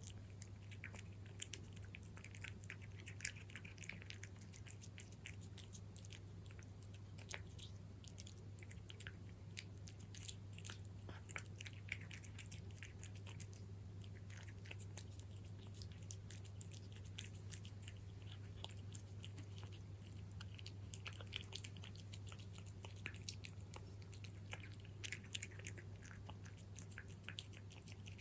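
A cat crunching dry kibble: quick, small crunching bites in clusters separated by short pauses, over a steady low hum.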